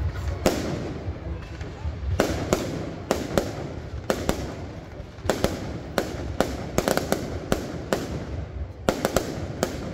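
Aerial fireworks going off: a quick, uneven run of sharp bangs from shells bursting, some in close pairs.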